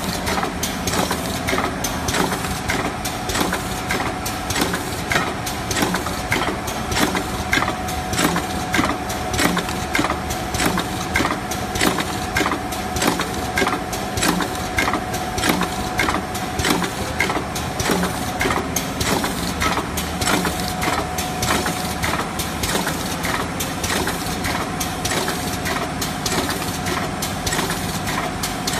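BAP Model 3000 rotary K-cup filling and sealing machine running at production speed (about 50 cups a minute): a rapid, even clatter of clicks and knocks from the indexing rotary table and tooling over a steady motor hum and a steady whine.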